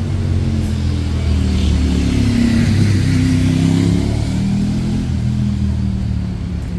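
A motor vehicle's engine running close by, its note rising and then easing back, loudest a couple of seconds in with a rush of tyre and road noise as it passes.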